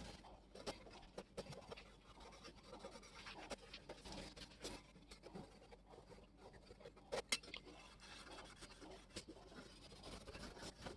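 Faint scratching and rubbing, as of hand work on a small object, with scattered light clicks and one sharper click about seven seconds in.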